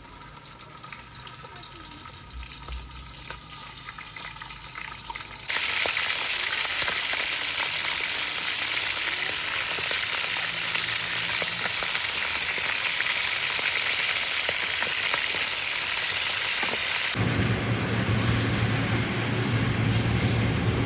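Food sizzling as it fries in hot oil: a steady hiss that starts abruptly about five seconds in, after a fairly quiet opening. Near the end a low engine hum suddenly joins it.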